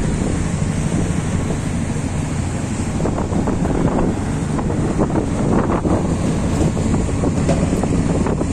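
Steady low wind rumble buffeting the microphone on a moving river boat, over the rush of water along the hull.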